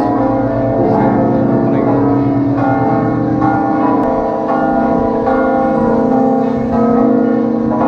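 Large church bells ringing a peal: repeated strokes, with each bell's tone ringing on under the next.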